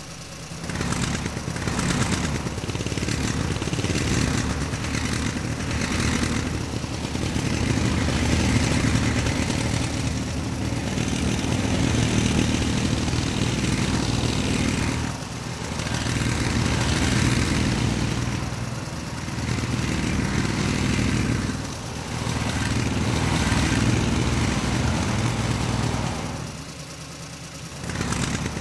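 An engine running, swelling and easing off in waves, with brief dips about halfway through, twice more after that, and near the end.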